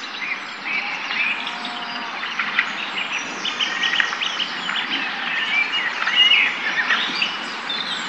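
Several songbirds chirping and singing at once, short overlapping calls and trills, over a steady background hiss of outdoor ambience.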